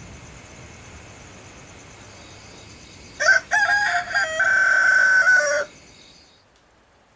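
A rooster crows once, starting about three seconds in: a broken call that ends in a long held note, marking daybreak. Beneath it a faint steady hiss with thin high tones fades out soon after the crow.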